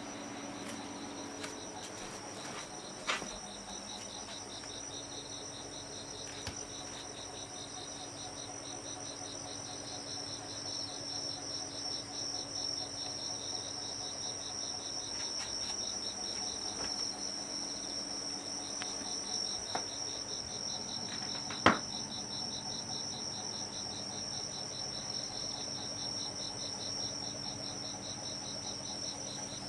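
Singing insects trilling without a break at night: one steady high trill and a faster pulsing trill just below it. A sharp click comes about three seconds in, and a louder one about twenty-two seconds in.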